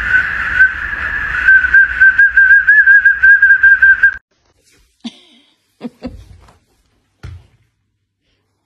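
Small plastic whistle held in a golden retriever's mouth, blown by its breath: a shrill, steady tone that breaks into a fast warbling trill and cuts off suddenly about four seconds in. A few brief, faint sounds follow.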